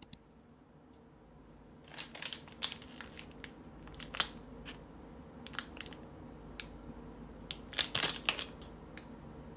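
Clear plastic packaging crinkling and crackling as it is picked up and handled, in several short bursts, with the loudest cluster near the end.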